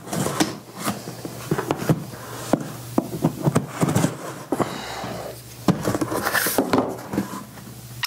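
A cardboard box being opened by hand: scraping and rustling of the packing tape and cardboard flaps, with many small knocks and clicks, over a steady low hum.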